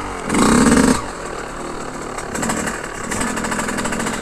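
Yamaha YZ125 two-stroke dirt bike engine revving hard for under a second near the start, then running at lower, steadier revs while being ridden.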